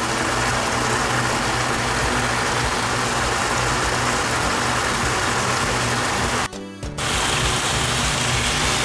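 Spiced onion-tomato masala with a little hot water sizzling steadily in a pan as boiled potato is crumbled in. The sound cuts out briefly about six and a half seconds in.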